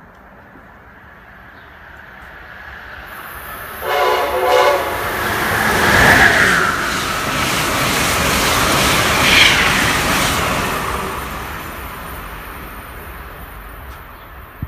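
Amtrak Northeast Regional electric passenger train approaching and running through at speed. It gives one short horn blast about four seconds in, then a rush of wheel and rail noise builds, peaks as the cars go by, and fades away.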